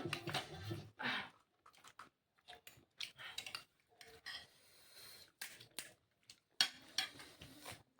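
Scattered light clicks and clatter of dishes and cutlery being handled.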